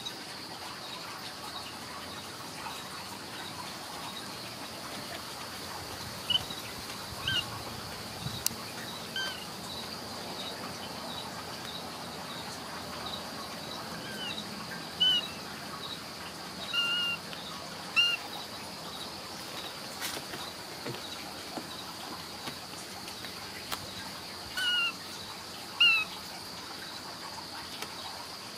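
Short, high chirping calls, about nine in all, each a quick rise and fall, scattered over a steady high-pitched insect drone.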